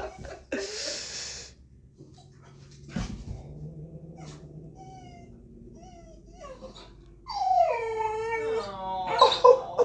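Puppy whining: small faint whimpers, then a long, loud whine-howl that falls in pitch over the last few seconds. There is a short hiss near the start and a thump about three seconds in.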